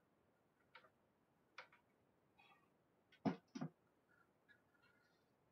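Near silence broken by a few faint, scattered clicks, the two loudest close together a little past three seconds in.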